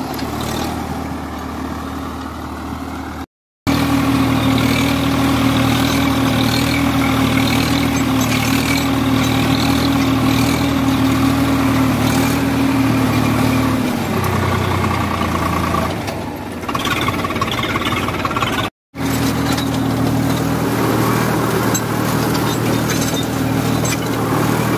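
Swaraj 855 FE tractor's diesel engine running steadily under load, driving a rotavator through its PTO as the blades till the soil. The steady hum changes a little in pitch about halfway through, and the sound drops out twice for a split second.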